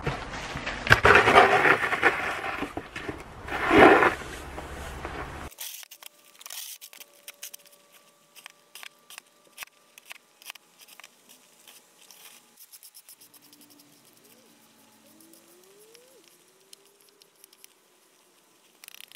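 Snow shoveling on a packed-snow driveway: loud crunching and scraping in two swells over the first five seconds, then a sudden drop to faint, quick clicks and scrapes of the shovel.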